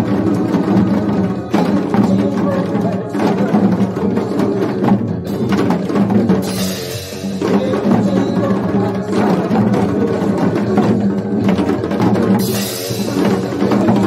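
Recorded Korean trot music with a group of janggu drums beaten in time to it, the sticks giving sharp, regular strikes over the steady beat. Two short bright hissing bursts cut in, about six and a half and twelve and a half seconds in.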